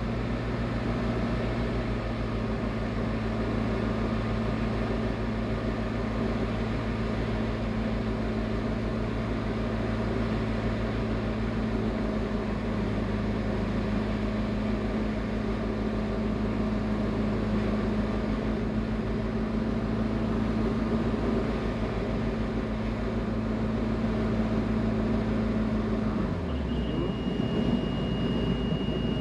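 Light aircraft's Rotax 912 engine (APM20 Lionceau) running steadily on the landing approach, then dropping in pitch near the end as power is pulled back. A thin, steady high-pitched tone starts just after the drop and holds.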